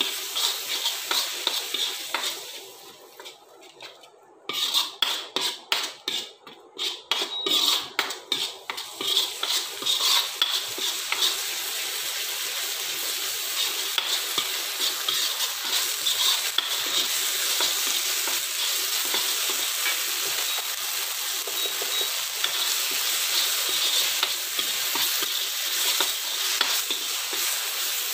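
Onion and ginger-garlic paste sizzling in butter and oil in a metal kadhai while a steel spoon stirs and scrapes against the pan. The sound drops away briefly a few seconds in, comes back as separate scraping strokes, then settles into a steady sizzle with stirring.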